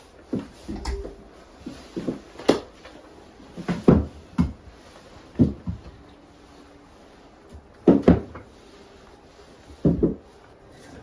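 Irregular knocks and thumps, about a dozen, like things being handled and set down in a small room; the loudest come about four, eight and ten seconds in.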